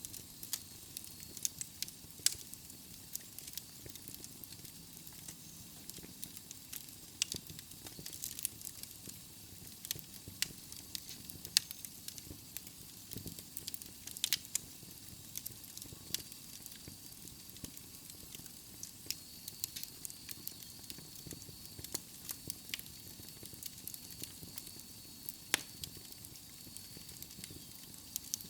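Wood fire burning in a fireplace, crackling with frequent irregular sharp pops over a soft hiss. A faint, steady high whine comes in about halfway through.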